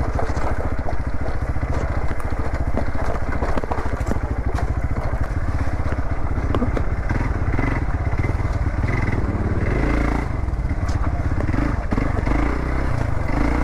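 Single-cylinder dual-sport motorcycle engine running steadily as the bike is ridden over a rough dirt trail, with scattered rattles and clicks.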